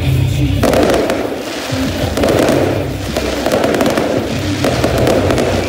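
Aerial fireworks bursting and crackling in quick succession.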